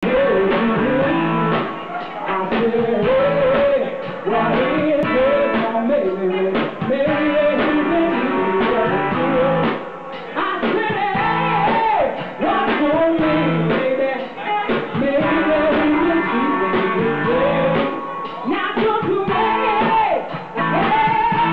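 Live rock band playing: a woman singing into a microphone over electric guitars and drums.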